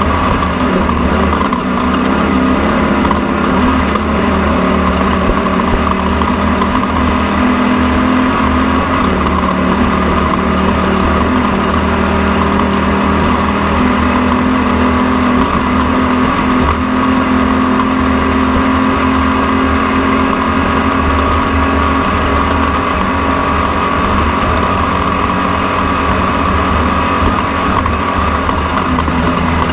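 An engine running steadily at a fairly constant speed, its pitch rising and falling slightly a few times.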